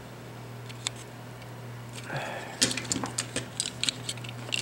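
Small plastic clicks and ticks from handling a disassembled computer mouse's plastic shell and circuit board: a single click about a second in, then a quick cluster of clicks from about two and a half seconds in, over a steady low hum.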